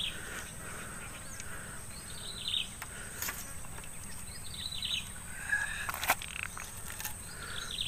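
Outdoor ambience of birds calling, short falling chirps repeated every second or two, over a steady high-pitched insect drone. A single sharp click sounds about six seconds in.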